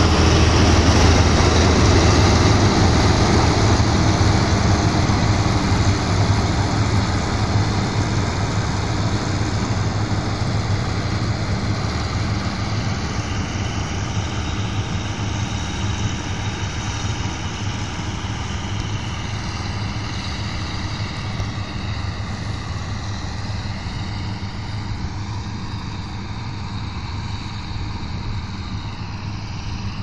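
Claas Senator combine harvester running while harvesting wheat, a steady engine-and-machinery hum that fades gradually as the combine moves away.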